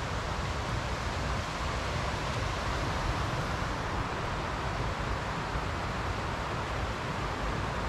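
Steady, unbroken rushing of a mountain creek's white water.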